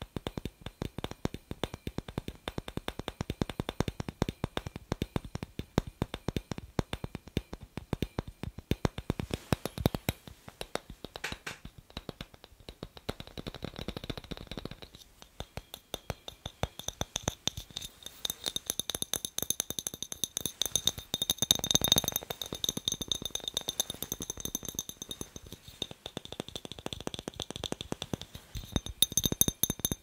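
Fingernails tapping fast on the thin glass of a clear incandescent light bulb, a dense run of light clicks. From a little past halfway the glass also rings with steady high tones.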